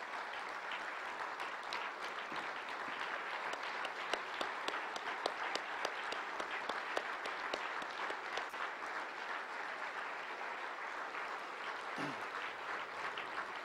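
A large audience applauding steadily, a dense patter of many hands clapping at once.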